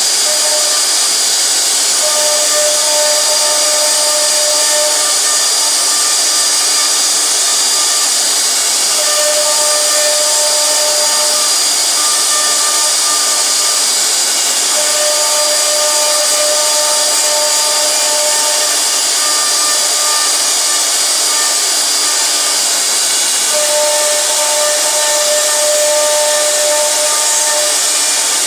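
CNC router spindle running and its bit cutting wood, carving raised lettering into a wooden name plate: a steady high whine over a loud even hiss. Lower tones come and go every few seconds as the machine moves.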